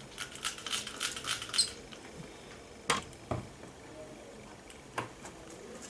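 Quick scratchy scrubbing strokes on a circuit board for about a second and a half, cleaning freshly soldered joints with isopropyl alcohol, followed by a sharp click, a knock and another click as the motherboard is handled.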